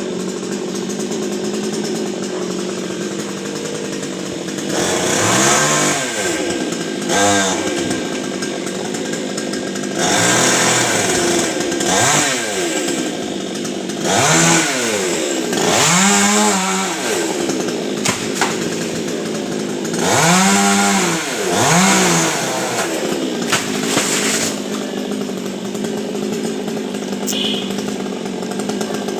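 Two-stroke chainsaw idling, with its throttle opened and let off about eight times, mostly in pairs: the engine pitch rises and falls back each time.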